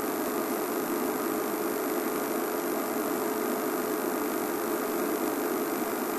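Game-drive vehicle's engine idling: a steady, even hum.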